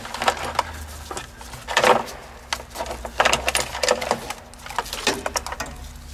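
Gloved hands handling wiring and a plastic inline fuse holder: irregular clicks, taps and rustling of wire and loom, over a steady low hum.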